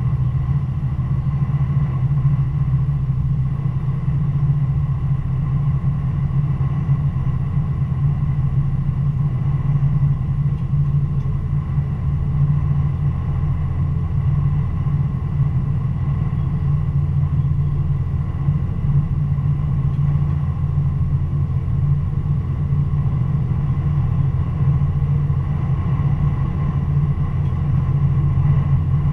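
Stadler GTW diesel-electric multiple unit running along the line: a steady low drone from the engine mixed with the rumble of the wheels on the rails.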